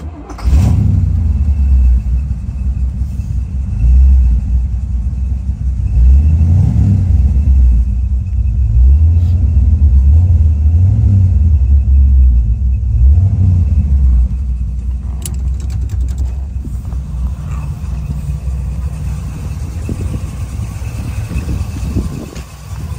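1973 Chevrolet Corvette V8 engine coming in with a deep rumble about half a second in and revved in several blips, then settling to a steadier idle for the last third.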